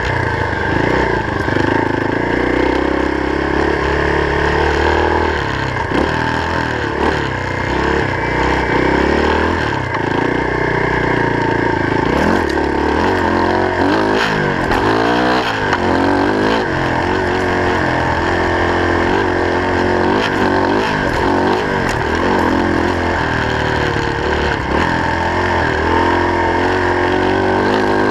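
Off-road vehicle's engine running on a rough dirt trail, its pitch rising and falling over and over as the throttle is opened and closed, more often in the second half. A steady whine runs underneath.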